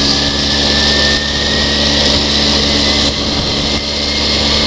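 ATV engine running at a steady cruising speed, its drone holding an even pitch, with a steady hiss over it as the quad travels along a dirt track.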